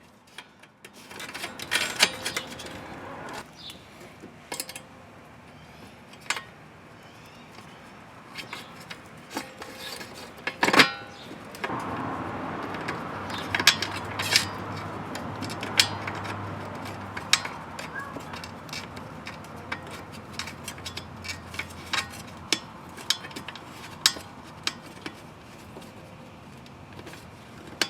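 Metal clicks and clinks of a ring on a wiring fitting being threaded on and tightened against a metal disconnect box, in irregular sharp knocks throughout. From about a third of the way in, a steady low hum runs underneath.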